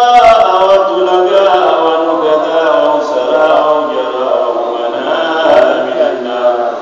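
A man chanting an Arabic supplication (du'a) in a melodic recitation, holding long, drawn-out notes.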